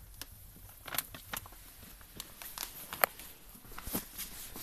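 Handling noise: scattered light knocks and clicks as things are moved about, with one sharp click about three seconds in.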